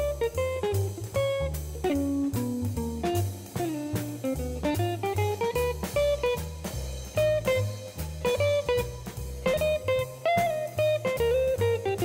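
Background music: a melody over a stepping bass line and a steady drum beat.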